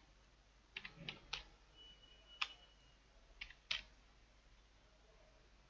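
Faint computer keyboard keystrokes: about six separate key presses, irregularly spaced, as a line of code is typed.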